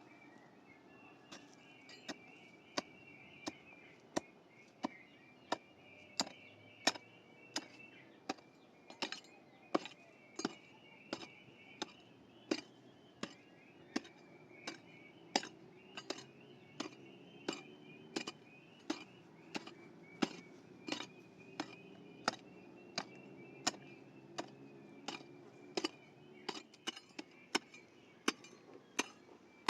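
A hand tool striking again and again in a steady working rhythm, about three sharp blows every two seconds, starting about a second in.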